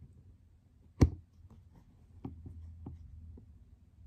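Handling noise from a camera being repositioned: one sharp knock about a second in, then several lighter clicks and taps with a low rubbing rumble.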